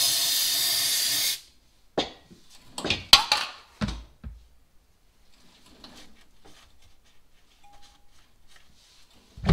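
A steady spray hiss lasting about a second and a half, typical of an aerosol cleaner sprayed onto a freshly sanded engine gasket surface. It is followed by a few sharp knocks and clatters, then the soft rubbing of a shop rag wiping the surface.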